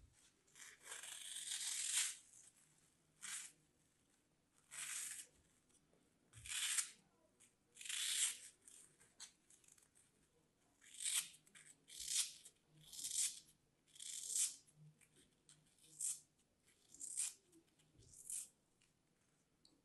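A craft-knife blade slicing through a crumbly green block, about a dozen separate dry, crunchy cuts with short pauses between them.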